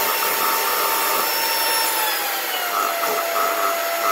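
Ryobi 18V One+ cordless stick vacuum running with its powered brush-roll head held up in the air, the motor giving a steady whine over airflow hiss. A little past halfway the whine drops in pitch and holds at the lower note, while the brush roll keeps turning.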